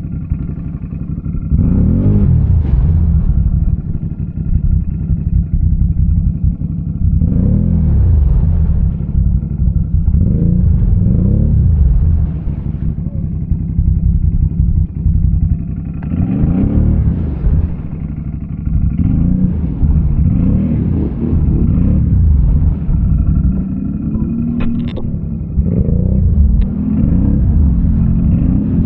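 An ATV engine revs up and drops back again and again in bursts over a steady low rumble, the way a quad's engine is worked in a mud hole.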